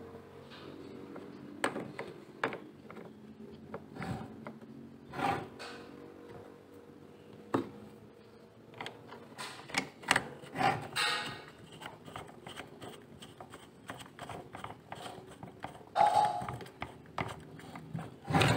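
Irregular clicks, taps and knocks of a screwdriver and hand working on the plastic housing of a Total cordless circular saw, driving screws into the motor housing, with a few louder knocks.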